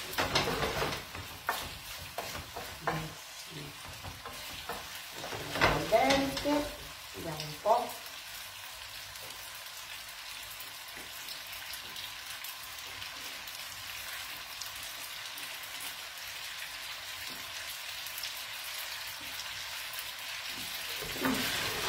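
Pasta sizzling in a frying pan on a gas hob. There are stirring scrapes from a wooden spoon in the first half, then a steady sizzle alone.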